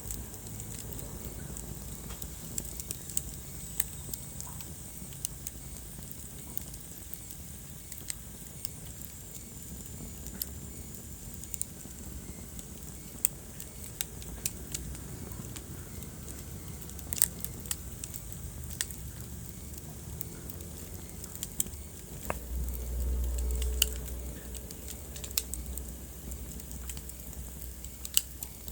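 Wood fire burning in a fireplace: a low steady rumble of flames with scattered sharp crackles and pops. About three quarters of the way through the flames swell briefly louder for a second or so.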